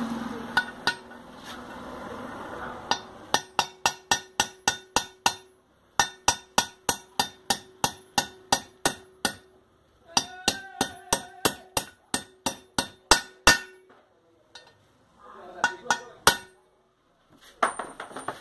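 Hammer tapping a 27 mm socket to drive a 6202 ball bearing into the aluminium crankcase of a Sundown MAX 125 engine. Sharp metallic taps come about three a second in three runs of a few seconds each, with a short ringing tone after each blow, then a few last taps near the end.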